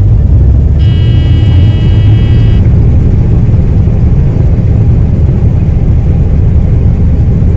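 John Deere combine harvester running with a loud, steady low drone. About a second in, a high-pitched steady tone sounds for about two seconds, then stops.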